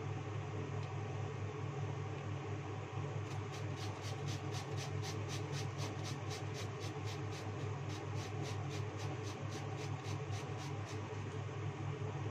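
Small Japanese cucumber being grated on a hand-held metal grater: quick rasping strokes, about four a second, starting a few seconds in and stopping near the end, over a steady low hum.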